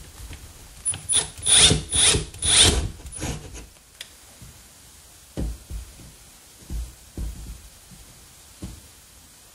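Cordless drill's motor whirring in a run of short trigger bursts, one after another, in the first few seconds. Later a few dull low knocks as the drill is handled.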